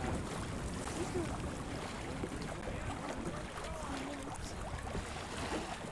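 Wind rumbling on the microphone over open water, with faint distant voices now and then.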